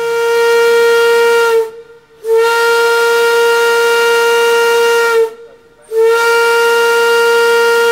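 A paddle steamer's steam whistle blowing three long blasts, each a steady loud tone with a short gap between them; the second blast is the longest.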